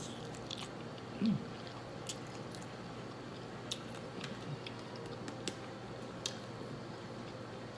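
A person chewing a mouthful of shrimp close to the microphone, with scattered small wet mouth clicks. A short low hum from the eater about a second in.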